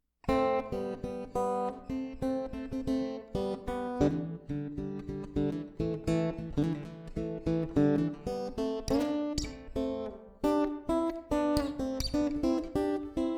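Acoustic guitar music of picked and strummed notes, starting just after a brief gap.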